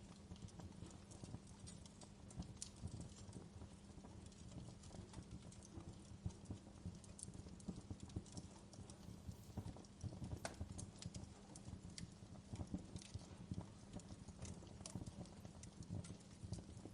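Wood fire crackling in a fireplace: irregular small pops and snaps over a faint, steady low rumble.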